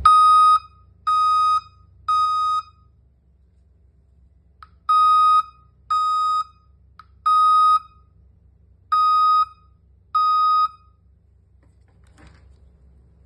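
A 24 V DC alarm buzzer beeping at one steady pitch: eight half-second beeps in groups of three, three and two, with pauses between the groups, as the alarm is triggered by detected movement.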